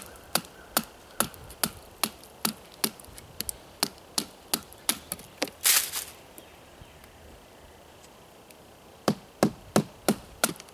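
Batoning: a wooden baton striking the spine of a custom bushcraft knife to drive it down through a piece of wood, in sharp regular knocks about two to three a second. A little past halfway comes a short, louder rasping burst, then a pause of about three seconds before the knocks resume.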